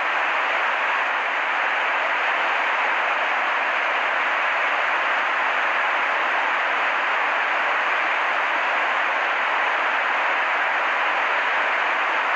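Steady, even hiss like static that does not change at all; no engine rumble, horn or impacts stand out.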